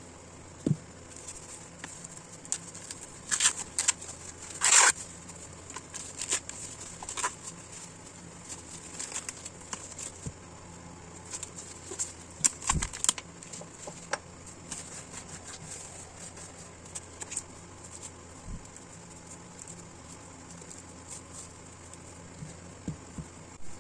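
Gloved hands handling a husked ear of corn: scattered rustles, crackles and light taps, with the loudest crackle about five seconds in and a dull thud near the middle.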